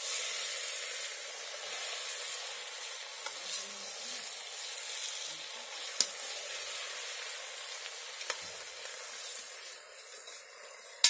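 Pieces of meat sizzling as they fry in a black pot over a wood fire, browning to a crust while being stirred with a spoon. A few sharp clicks stand out, the loudest about six seconds in and another near the end.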